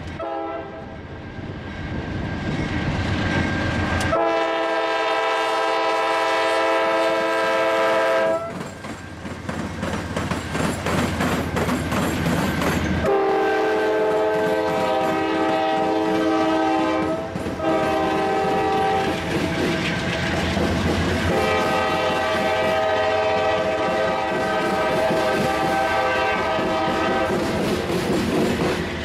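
Diesel freight locomotive's multi-chime air horn sounding four blasts, long, long, short, long: the standard grade-crossing signal. Underneath are the rumble of the passing locomotives and the clatter of wheels over the rails.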